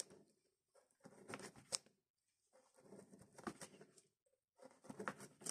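Small Fox knife slicing through a dry saucisson on a plastic cutting board: faint, short cuts and taps of the blade on the board, in three brief runs about a second and a half apart.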